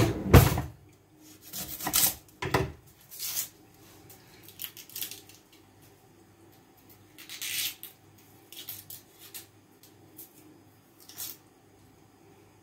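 Kitchen handling sounds around an onion and a cutting board: a sharp knock just after the start, a few lighter knocks over the next few seconds, then scattered dry rustles and scrapes, over a faint steady hum.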